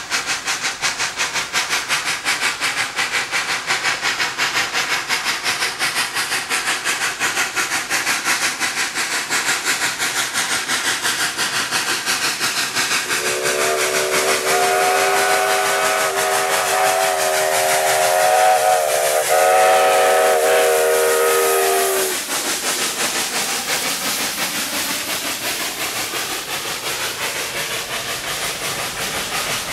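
Southern Railway 2-8-0 steam locomotive #154 working hard, its exhaust chuffing in quick, even beats as it approaches and passes. About halfway through, its chime steam whistle sounds two long blasts, the second following almost at once, then cuts off.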